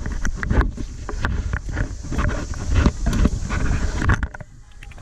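Metal safety-lanyard clips clinking and scraping as they slide along a steel safety cable, with irregular clicks throughout. Under them runs a low rumble of wind and handling noise on the microphone, which drops away briefly near the end.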